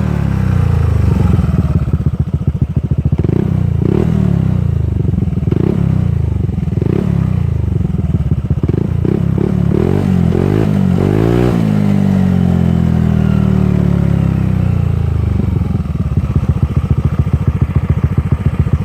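Honda Forza 125 scooter's single-cylinder four-stroke engine being blipped with short throttle twists about once a second, then quicker blips and one longer rev about halfway through that falls slowly back to idle.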